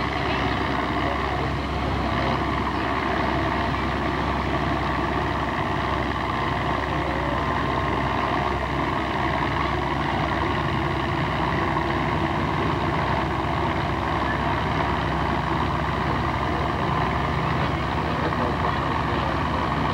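Antique farm tractor engine running steadily, an even drone with no revving.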